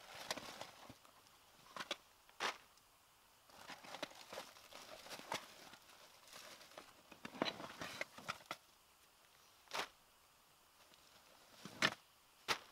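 Plastic tarp crinkling and rustling in irregular bouts as someone kneels and shifts on it and lays gear down, with a few sharp knocks and clicks, the loudest near the end.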